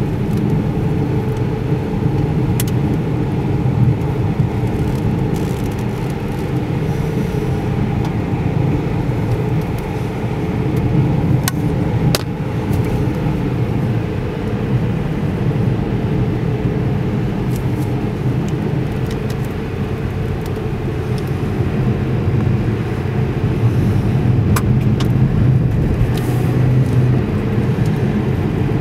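Car driving on a snowy highway, heard from inside the cabin: a steady low drone of engine and tyre noise, with a few short sharp clicks.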